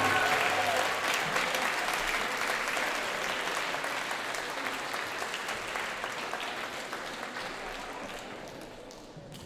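Audience applauding after a choir's song ends, the clapping gradually dying away.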